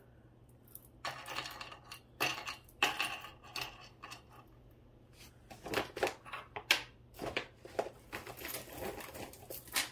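Loose costume jewelry clinking and jingling as it is rummaged through and pulled from a pile: an irregular run of light clicks starting about a second in.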